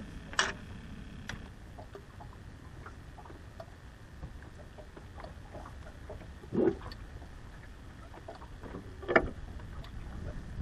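Small boat rocking on a choppy lake, with a steady low rumble of wind and water and faint ticks. Three knocks on the boat rise above it: a sharp one just after the start, a duller one past the middle, and the loudest near the end.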